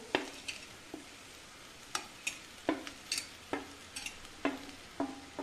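A cooking spoon knocks and scrapes against a metal kadhai about ten times, irregularly and roughly twice a second, some knocks with a short ring. This is fried bitter gourd pieces being tipped in and stirred into frying onions and raw mango, with a faint sizzle underneath.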